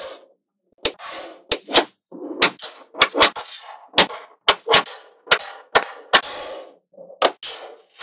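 Small metal magnet balls clicking and clinking in quick sharp snaps as blocks of balls are set down and pulled onto a flat layout of balls, with a brief rattle of balls between clicks, roughly two clicks a second after a short quiet gap at the start.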